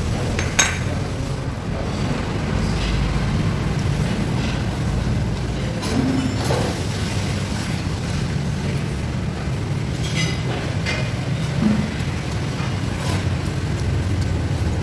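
Spoon and fork clinking lightly against a ceramic soup bowl and plate, several scattered clinks, over a steady low rumble of background noise.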